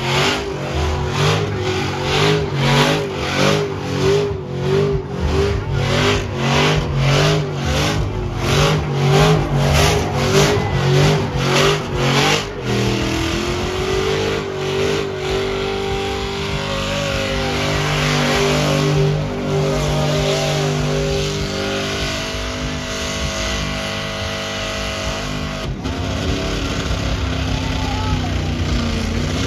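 Lowered Chevrolet Silverado pickup's engine revving through a smoky burnout: for about the first twelve seconds the revs rise and fall about twice a second, then the engine holds a steady high rev with the rear tyres spinning.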